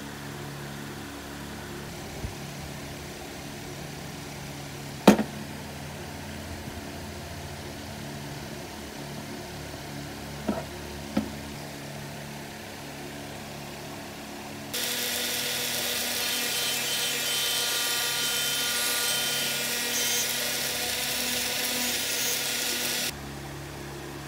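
A small electric power tool running steadily for about eight seconds in the second half, a whine with several held pitches that starts and stops abruptly. Before it, over a low steady hum, a sharp tap about five seconds in and two lighter taps around ten seconds.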